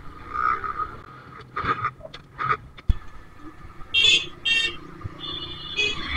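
TVS Metro Plus 110cc motorcycle riding along a road, its engine and the wind a low steady hum, running on the last fuel in the carburettor with the tank line shut. A vehicle horn honks twice briefly about four seconds in and sounds again for longer near the end. A sharp click comes about three seconds in.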